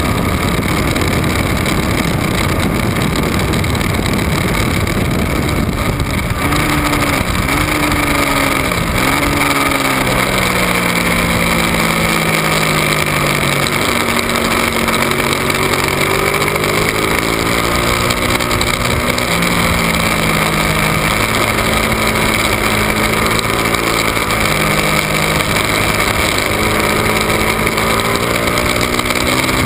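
Ducati 1199 Panigale's V-twin on track at speed, under heavy wind rush. For the first few seconds the wind dominates. Then the engine note dips and recovers sharply twice, as when changing down into a corner, and after that climbs steadily as the bike accelerates, dropping in a step at each upshift, twice.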